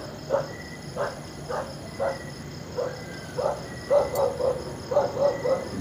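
Frogs croaking in short repeated calls that come closer together in the second half, over a steady high insect trill.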